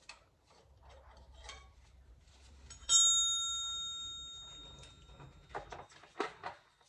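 A metal piece strikes metal once about three seconds in and rings with several clear tones that die away over about two seconds. A few quick metallic clanks follow near the end, with light clicks of hand tools on the engine before.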